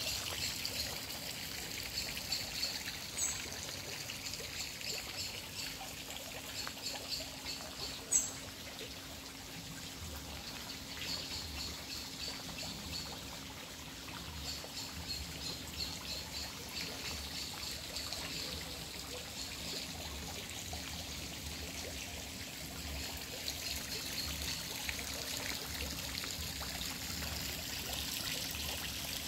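Small pond fountain splashing and trickling steadily, with birds chirping in short bursts at times.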